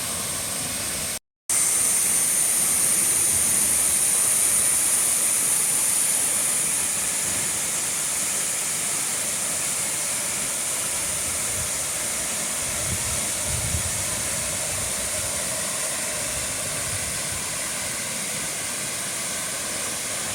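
Horsetail Falls' water plunging into its pool: a steady rushing hiss, broken by a brief silent gap about a second in.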